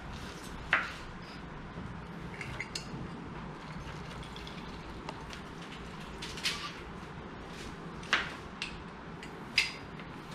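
Food-prep clatter: a few scattered sharp clicks and knocks from a knife on a plastic cutting board and a metal hand lime squeezer, over a steady low hum.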